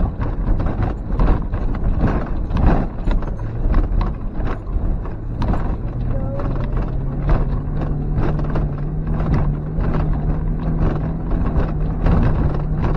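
Suzuki X-90's 1.6-litre four-cylinder engine running steadily, heard from inside the cabin, under a constant irregular rattle and knocking as the car jolts over a rough, rutted dirt track. The engine note steps up a little about halfway through.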